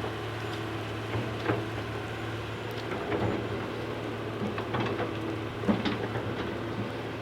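An excavator's motor runs steadily with a low hum, with scattered knocks and clicks about a second apart as it works the soil.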